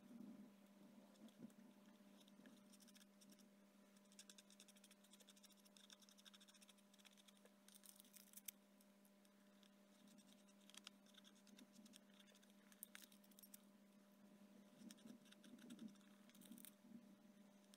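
Near silence: a steady low hum, with faint rustles and light taps of decopatch paper being handled on a wooden lap tray.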